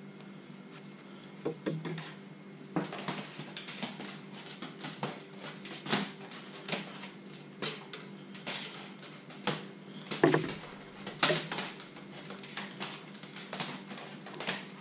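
Thick monofilament wind-on leader being pulled by hand through a loop-to-loop connection: irregular swishes and light clicks of the line sliding and being handled, over a faint steady hum.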